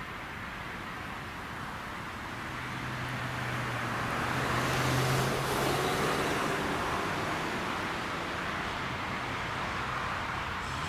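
Road traffic noise, with a motor vehicle going by that grows louder about five seconds in and then eases off.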